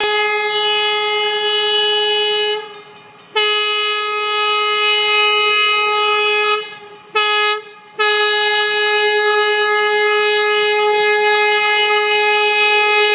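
West Penn Railways trolley car's horn sounding the grade-crossing signal on one steady pitch: two long blasts, a short one, then a final long blast held to the end. The pattern warns road traffic that the trolley is approaching the crossing.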